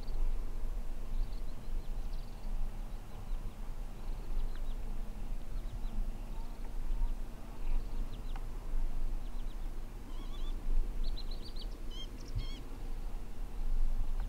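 Outdoor waterside ambience: a steady low rumble with faint, scattered high chirps of small birds, and a quick run of higher twittering calls after about eleven seconds.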